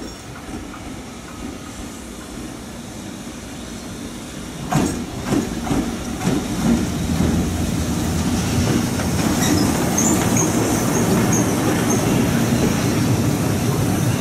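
EF65 electric locomotive running light past at close range, its rumble growing louder as it nears. About five seconds in, its wheels start clacking over rail joints, and a few short high squeals come from the wheels near the middle.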